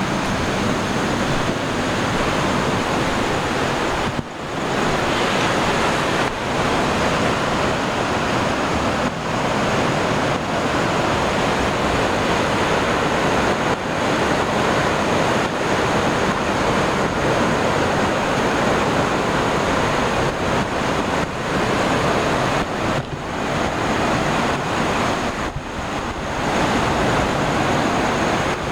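Sea waves washing on the shore, a loud continuous rush with brief lulls, and a steady high-pitched insect trill running over it.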